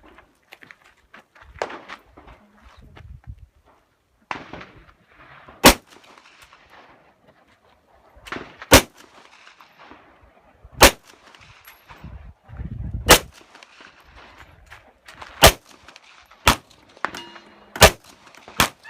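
Glock 17 9mm pistol fired eight times in slow, irregular succession, the shots about one to three seconds apart.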